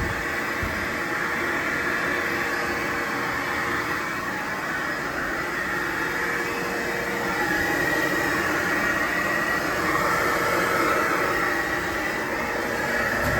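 Lochinvar FTX 400N gas-fired condensing boiler running at full fire: a steady rushing of its combustion blower and burner, with a faint steady hum.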